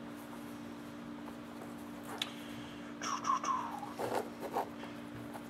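Shoelace being pulled through the eyelets of a leather boat shoe: soft rustling and scraping of the lace and leather, with a brief squeak about three seconds in and a burst of scraping about a second later, over a steady low hum.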